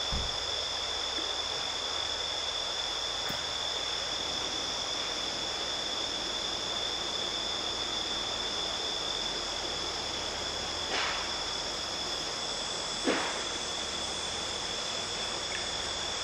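Crickets trilling steadily in a continuous high chorus. Two light knocks come near the end, the second the louder.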